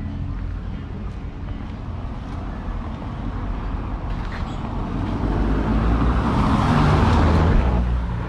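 A car driving past on a cobblestone street, its tyre noise and engine growing louder over several seconds, loudest about seven seconds in, then dropping away. A low engine hum runs underneath.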